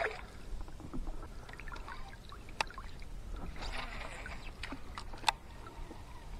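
Quiet handling sounds in a plastic kayak on still water: faint water movement and a few sharp small knocks of gear against the boat, two standing out about two and a half and five seconds in.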